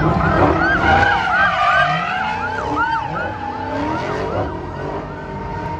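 Police siren yelping in fast rising-and-falling cycles over tyre squeal and engine noise from cars drifting.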